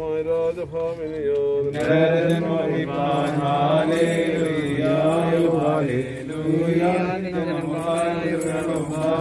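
Male voices chanting a slow Orthodox liturgical hymn in long held notes that glide between pitches. About two seconds in, the singing grows fuller and louder.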